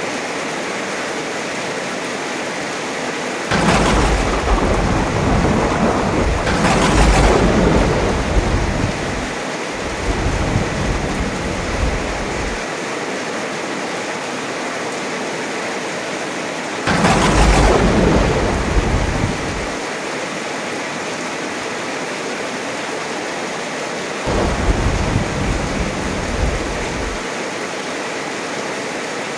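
Heavy rain falling steadily, with thunder rolling over it three times: a long roll opening with two sharp claps a few seconds in, another clap and roll about halfway through, and a shorter low rumble near the end.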